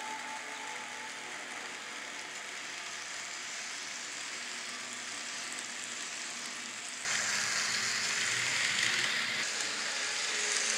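N scale model trains running on the layout track: a steady hissing rattle of small wheels and motors that jumps suddenly louder about seven seconds in.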